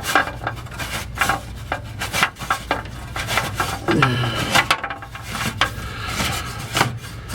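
Repeated knocking and scraping as the fuel pump's retainer ring is worked loose on a dropped fuel tank, until it comes free.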